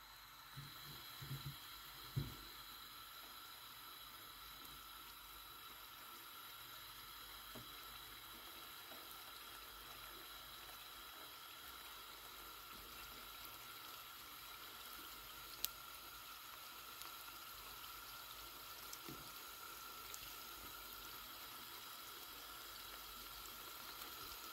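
Hot oil sizzling faintly and steadily as beef spring rolls deep-fry in a pan. A few soft knocks come in the first couple of seconds, and a single sharp click comes about two-thirds of the way through.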